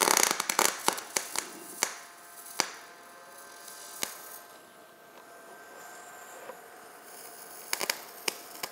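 MIG welding arc with the wire stickout set too short at 1/8 inch: a burst of dense crackling as the arc strikes, then irregular sharp pops over a faint steady hum, the erratic sound of a bad, too-short-stickout weld.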